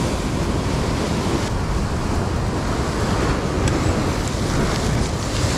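Rough sea surging and breaking into white foam against the rocks below, a steady rushing with no let-up.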